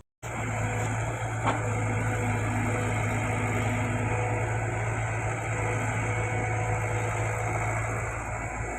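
Heavy diesel engine of earthmoving machinery running steadily, with a single knock about a second and a half in.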